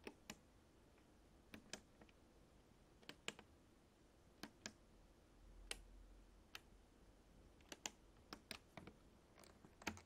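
Push-buttons on a Miele W5964 washing machine's control panel being pressed: a series of sharp, separate clicks, several in quick pairs as a button is pressed and released, over a very quiet background.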